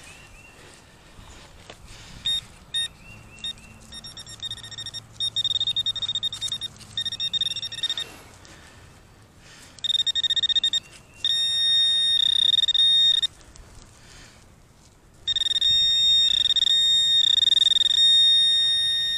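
Handheld metal-detecting pinpointer probing a dug plug of soil. It beeps in short broken pulses, then sounds a steady high-pitched tone for several seconds at a time as it comes onto the buried metal target.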